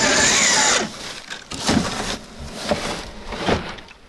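Brushless electric motor of an RC4WD Gelande Defender 90 scale crawler whining under load as it climbs, its pitch gliding up and down, cutting off sharply under a second in. After that, a much quieter stretch with three soft low thumps about a second apart.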